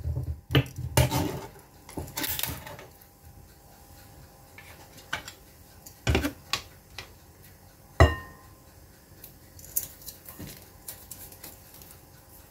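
Scattered knocks and clinks of kitchen utensils and containers against a glass mixing bowl, about half a dozen in all. The loudest comes about eight seconds in and rings on briefly.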